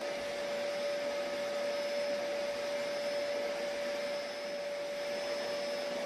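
Vacuum cleaner running steadily as its floor head is pushed over a carpet: a constant whine over a rush of air, cutting in suddenly from silence at the start.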